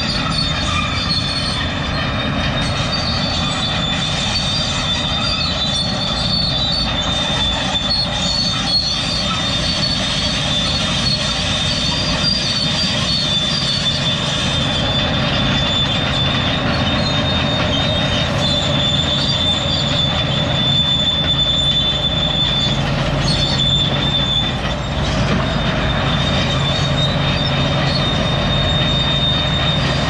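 A steady mechanical rumble with a continuous high-pitched whine over it, running without a break; the whine dips briefly a little past the middle.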